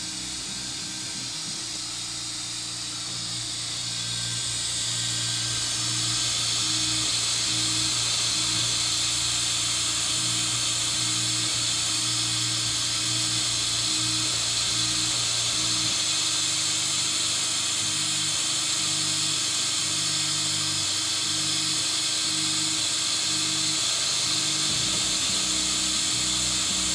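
Ecksbot-ZA RepRap 3D printer running a calibration print: its stepper motors whine in steady tones that jump to new pitches as the axes change direction. Underneath is a steady hiss that grows louder over the first few seconds.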